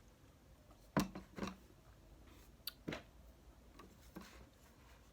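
A few light knocks and clicks of tableware being handled, the loudest two about a second in, then softer ones near three seconds and near the end.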